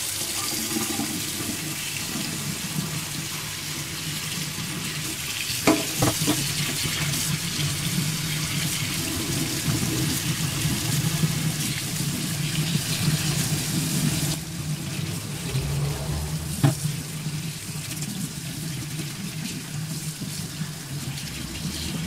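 Hot kitchen tap running steadily, its stream splashing over an inkjet printhead held under it and into a stainless steel sink. A few sharp knocks come about six seconds in and once more near the end.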